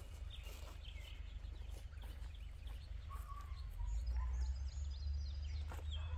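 Birds chirping and whistling in short, scattered calls, over a low rumble that grows louder about four seconds in.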